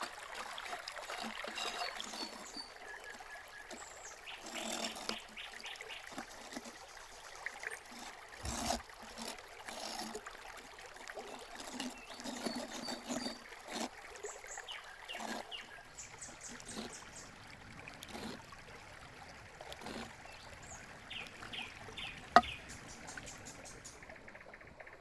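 Cooking handling sounds, with scattered clicks and knocks of utensils and one sharp click near the end, and small birds chirping in short high runs in the background.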